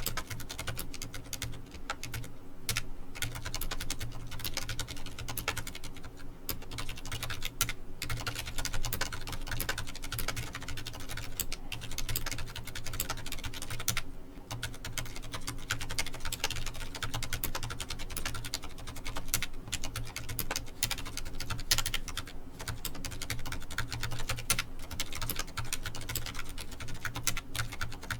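Continuous fast typing on a Ducky ONE 2 full-size mechanical keyboard with spray-lubed Cherry MX Silent Red linear switches and double-shot keycaps. It is a dense run of muted, cushioned keystrokes, with a few louder strokes now and then.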